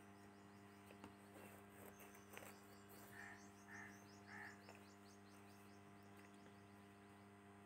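Near silence over a steady low electrical hum, with faint bird chirps in a quick series for a few seconds midway, and a couple of light taps of a spoon against the aluminium pot as the sauce is stirred.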